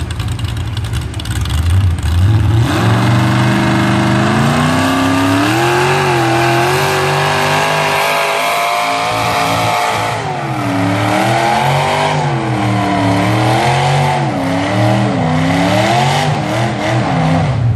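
Antique tractor engine working hard under load while pulling a weighted sled in a tractor pull. It revs up about two seconds in and holds, then its pitch dips and climbs again and again toward the end.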